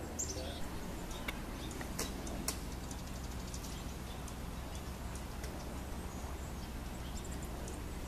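A high, thin, down-slurred small songbird call shortly after the start, then a few sharp clicks and scattered faint high ticks, over a steady low outdoor rumble.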